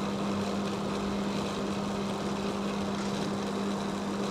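A steady machine hum with a light hiss, holding one low pitch.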